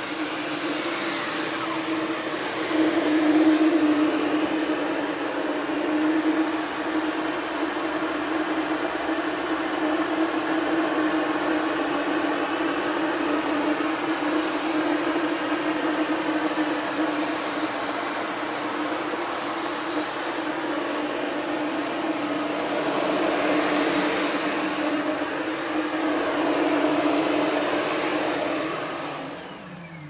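SEBO Dart commercial upright vacuum cleaner running steadily on a hard floor, a constant motor hum under the rush of suction, growing louder in a few swells. Near the end it is switched off and its pitch falls as the motor winds down.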